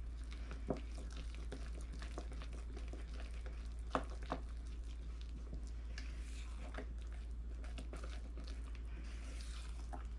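Thick, hot chocolate fudge mixture being stirred in a heavy saucepan: soft, sticky scraping with a few light knocks against the pot, about a second in and twice around four seconds in. A steady low hum runs underneath.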